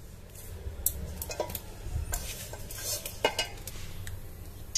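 A few light, scattered taps and clinks from a stainless-steel bowl and plate as hands press wheat-flour dough into rolls and set them down on the plate.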